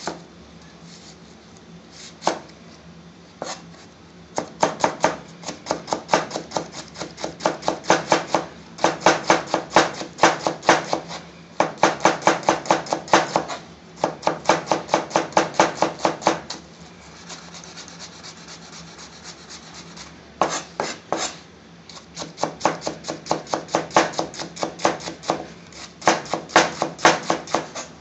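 Large kitchen knife finely slicing an onion on a plastic chopping board: rapid runs of knife strikes against the board, several a second, broken by short pauses.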